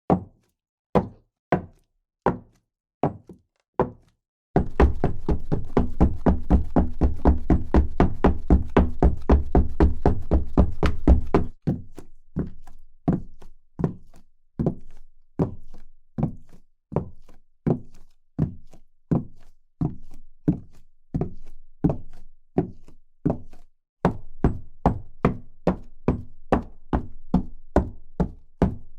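A series of footstep sound effects, one thud per step. The slow, separate steps at the start give way to a fast stepping rhythm over a steady low background, then to a steady walking pace with a slightly quicker stretch near the end.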